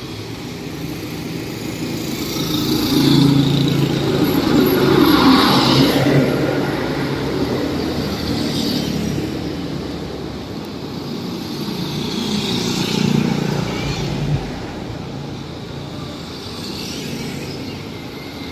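Road traffic on a highway: vehicles' engines and tyres running by. The sound swells as vehicles pass, about three to six seconds in and again around twelve to fourteen seconds.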